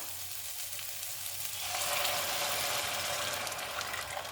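Masala sizzling in a hot pan; about one and a half seconds in, the sizzle grows louder as the wet ground pulimunchi paste goes into the fried masala.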